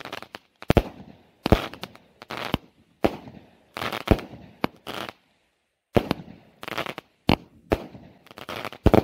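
Consumer firework battery (cake) firing: a rapid, irregular run of sharp bangs from shells bursting overhead, one to three a second, with a brief pause a little past halfway.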